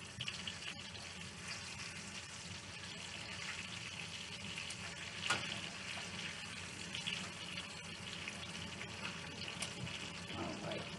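Chicken thighs frying in oil in a pan: a steady sizzle with scattered crackles.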